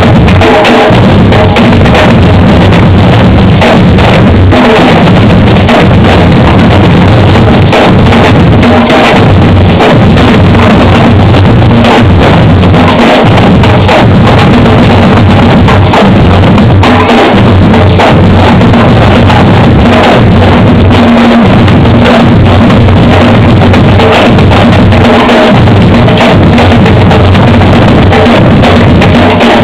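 Batucada drum group playing a steady samba groove: deep surdo bass drums struck with mallets under dense strokes from smaller stick-played drums, loud and continuous.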